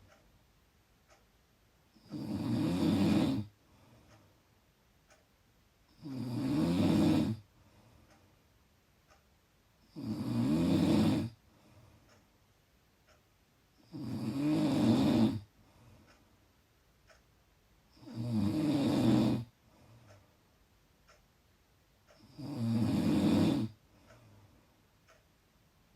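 Loud snoring: six rasping snores come at an even rhythm, about one every four seconds. Each lasts about a second and a half, with quiet breathing between them.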